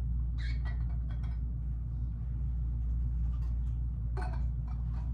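Steady low hum of room tone, with a few faint, brief clinks about half a second in and again about four seconds in.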